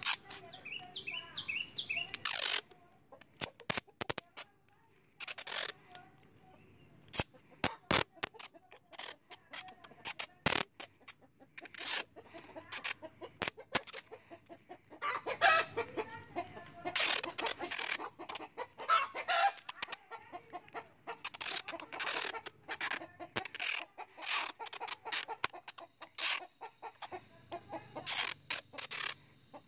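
Clear adhesive tape pulled off the roll in quick rasping strips and crackling as it is wrapped and pressed down, in many short pulls with a denser stretch of tearing about halfway through.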